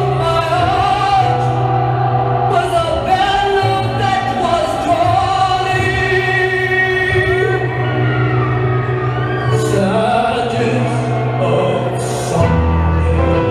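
Music with a sung vocal line over a steady low drone.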